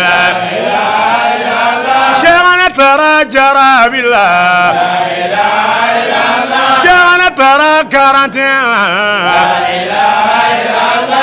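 Men's voices chanting an Islamic devotional poem: a lead male voice sings long, wavering melismatic lines while a group of men sing along.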